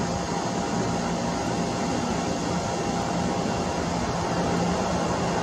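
Boeing 737-800's CFM56-7B jet engines running at low power as it rolls slowly along the runway after landing, heard from a distance as a steady hum with a faint whine.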